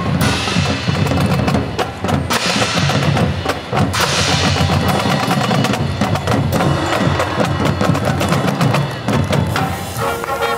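A marching band's percussion section plays a loud, fast drum passage with many rapid strokes. Held pitched notes come in near the end.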